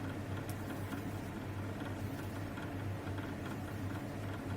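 Quiet room tone: a low steady hum, with one faint click about half a second in.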